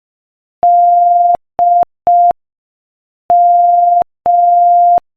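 Morse code practice tone sent at 5 words per minute: a steady single-pitch beep keyed in long and short elements. After half a second of silence come one long and two short beeps (the letter D), then a pause and two more long beeps.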